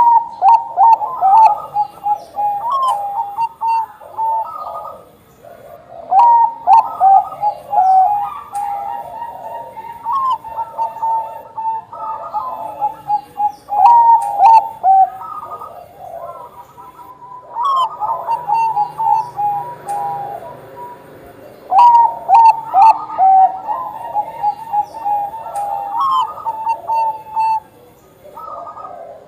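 Zebra dove of the Thai-bred Bangkok line (perkutut bangkok) cooing: loud, trilled phrases a few seconds long, repeated after short pauses.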